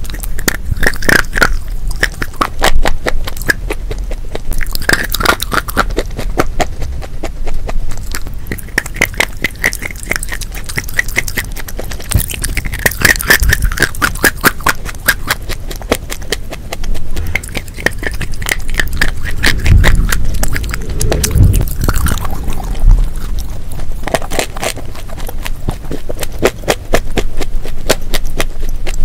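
Close-miked biting and crunching of chalk sticks and dry clay pieces: a dense run of crisp cracks and crunches with a few louder bites.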